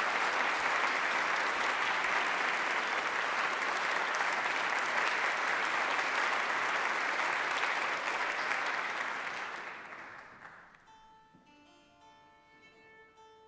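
Concert audience applauding, dying away about ten seconds in. Then the chamber orchestra's strings start softly with a few steady notes.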